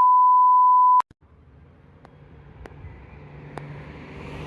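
A single steady electronic beep, one pure tone about a second long, cutting off sharply. Then outdoor background noise fades in and grows louder, with a few faint ticks.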